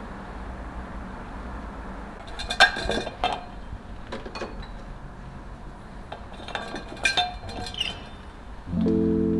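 Teaware clinking as a tea set is handled: a string of light, sharp clinks of cups and dishes knocking together. Music begins near the end.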